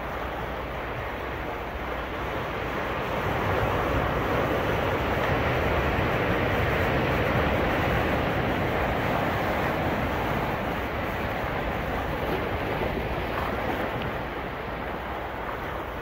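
Ocean surf on a beach: a continuous wash of breaking waves that swells for a few seconds and eases off again near the end.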